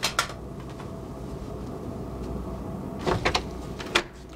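A cabin door being opened: a few sharp clicks and knocks of the handle and latch about three seconds in and another sharp click near the end, over a low steady hum.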